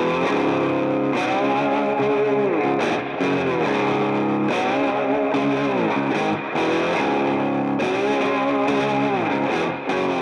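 Background music led by a distorted electric guitar, playing steadily with notes that bend up and down.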